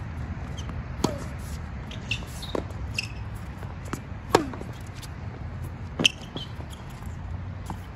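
Tennis rally on a hard court: a string of sharp racket-on-ball hits and ball bounces, the loudest a forehand struck close by about halfway through, with short squeaks of tennis shoes on the court surface between shots.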